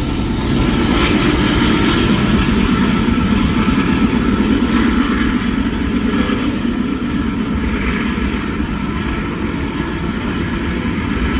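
Freight train rolling past: a steady rumble of locomotive engine and rail cars that swells slightly about half a second in and eases off a little in the second half.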